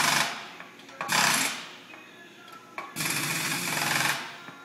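Kurt pneumatic power drawbar on a Sharp vertical mill hammering in bursts, its air impact wrench working the drawbar of the 30-taper spindle. One burst ends just after the start, a short one comes about a second in, and a longer one comes about three seconds in.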